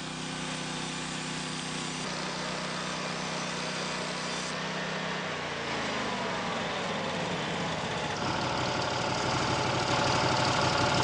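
Portable sawmill's engine running steadily; about five seconds in its pitch drops away, and from about eight seconds a new, slightly louder steady tone sets in.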